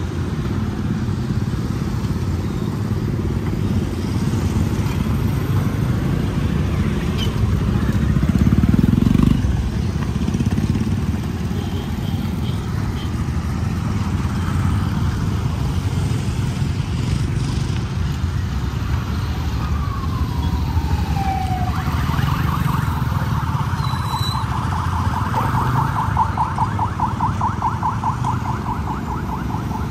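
Street traffic: engines of passing vehicles running, with one passing close and louder about eight seconds in. Past the middle a tone slides downward, then a fast warbling alarm tone sounds over the traffic for several seconds.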